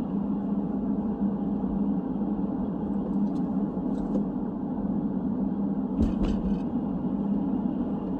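Steady road and engine hum inside a moving car's cabin, with a few light clicks and a brief knock about six seconds in.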